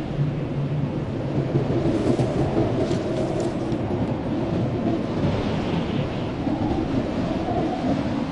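Blizzard wind howling steadily: a dense low rumble with wavering moaning tones that rise and fall, and brief gusts of hiss around the middle.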